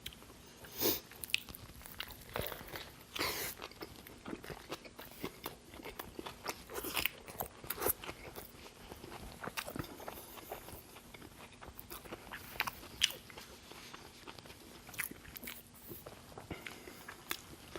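Close-miked chewing of a mouthful of Burger King double Whopper: irregular wet mouth clicks and smacks.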